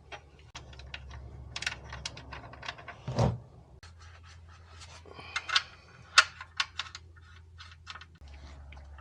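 Irregular clicks and small metallic clinks of hand tools and parts being handled during an oil change, over a faint low steady hum.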